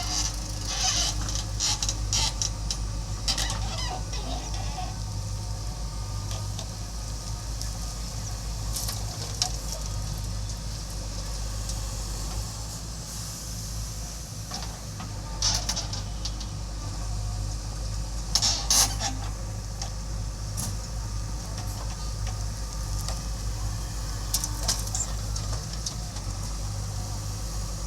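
Backhoe loader's diesel engine running steadily under load, with scattered clanks and short scraping, rushing bursts of digging and loading soil.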